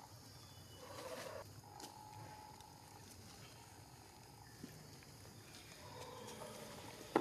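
A baby monkey giving faint, drawn-out calls held at a steady pitch, three times, with a sharp click at the very end.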